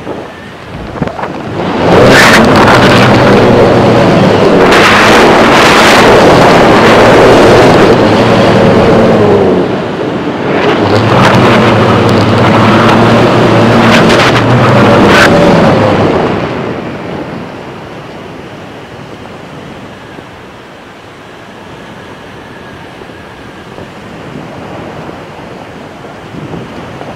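Heavy wind buffeting on the microphone of a kite-lifted camera, with a low droning buzz, in two long loud stretches, then easing to a softer steady rush of wind and surf near the end.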